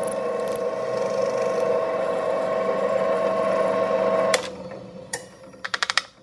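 A power tool running steadily with a high hum, switched off a little past four seconds in and spinning down, followed by one click and then a quick run of about six light clicks.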